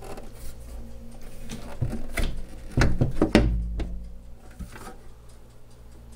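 Clear plastic turntable dust cover being fitted onto its hinges and lowered shut: a series of plastic clicks and knocks, the loudest with a low thump about three seconds in.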